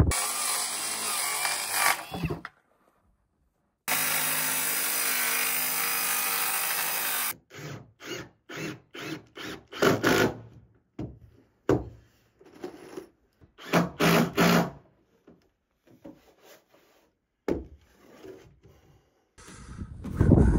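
Cordless drill driving screws into a plywood floor in a string of short bursts, after a few seconds of steady running from a power tool.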